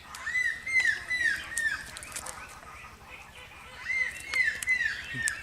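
A bird calling in repeated short arched notes, about two or three a second. It gives one run of four or five notes at the start and another near the end.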